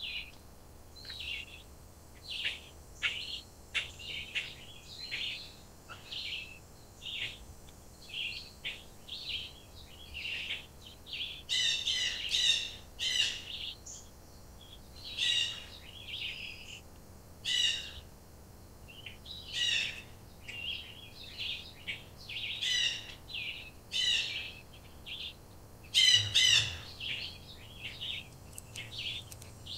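Wild birds chirping and calling: many short, high chirps throughout, and a little over a third of the way in, louder calls start to repeat every second or two.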